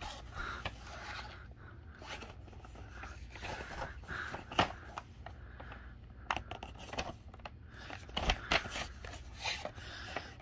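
A cardboard model-aircraft box with a plastic window being handled and turned over in the hands: irregular rubbing and scraping of the cardboard, with a few sharp clicks and taps, the loudest about halfway through.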